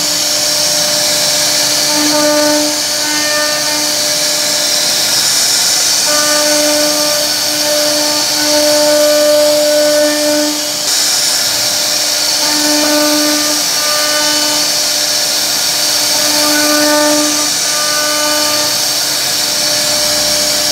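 CNC wood router spindle running as its bit carves a relief into a wooden door panel: a steady high whine with cutting hiss. A lower, steady-pitched tone starts and stops repeatedly over it.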